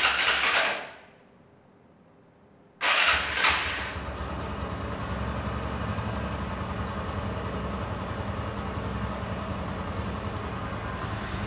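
Background music fades out, then about three seconds in the rebuilt TVS Apache RTR motorcycle's single-cylinder four-stroke engine starts with a short loud burst as it catches and settles into a steady idle.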